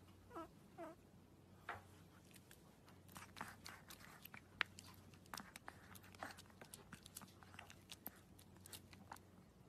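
Faint sounds from a small white puppy: two short, high, whimpering squeaks near the start, then a run of soft clicking and smacking mouth sounds.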